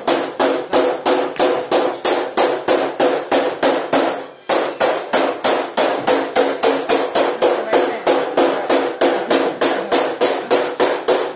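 Rapid, steady hammer blows on metal, about four a second, each with a short ring, pausing briefly about four seconds in before carrying on.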